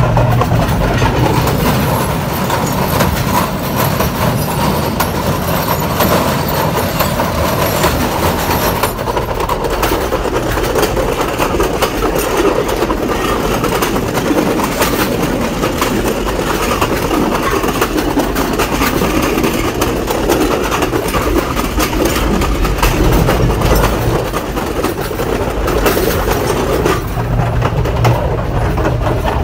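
Diesel train running along the track: a steady engine drone under the quick clickety-clack of wheels over the rails, the engine hum growing stronger near the end.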